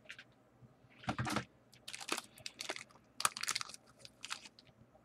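Light handling noises off camera: five or six short clusters of small clicks and rustles a fraction of a second apart, with quiet gaps between them.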